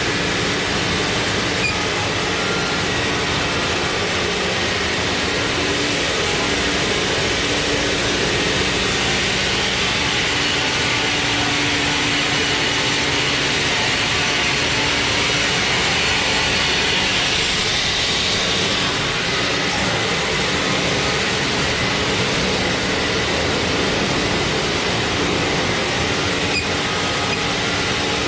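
Sawmill machinery running loudly and steadily with a low hum under a dense hiss. A higher hiss swells in the middle and drops away suddenly about two-thirds of the way through.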